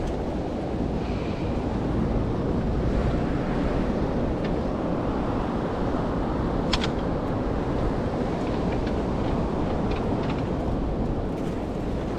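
Steady low rumble of wind buffeting the microphone over open sea water. A few light clicks come through it, the sharpest about seven seconds in.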